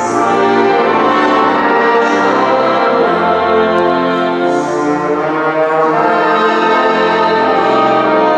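Brass band playing sustained chords.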